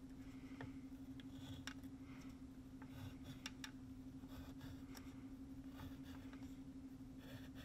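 Pencil scratching short vertical strokes on paper, a dozen or so brief faint scratches at irregular intervals, over a steady hum.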